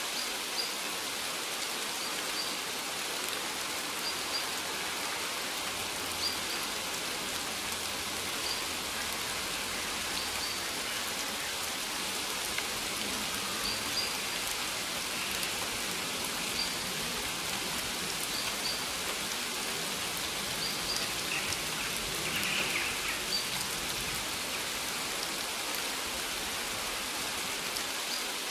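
Steady rain falling on maize plants, an even hiss of drops on leaves. Faint short high chirps recur every second or two over it.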